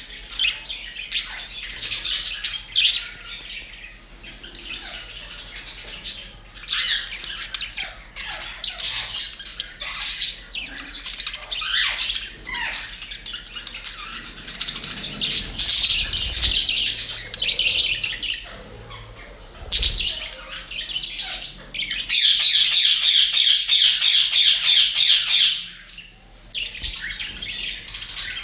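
Pet parrots and budgerigars chirping and squawking in a string of short, sharp calls. Near the end comes the loudest part, a run of rapid, evenly repeated calls lasting about three seconds.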